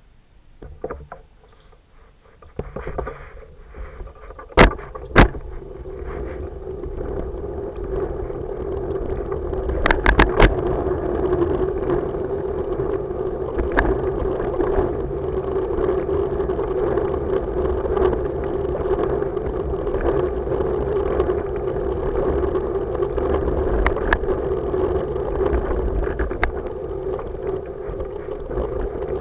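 Hoverboard rolling over paved paths: a steady rolling noise with a deep rumble and hum, building up over the first few seconds. Two sharp knocks come about five seconds in, and a quick cluster of clicks around ten seconds in.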